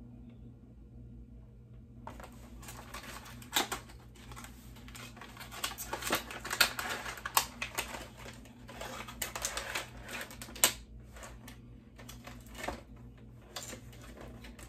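Cardboard retail box and its packaging being opened and handled by hand: a busy run of rustles and clicks starting about two seconds in, with a few sharper knocks.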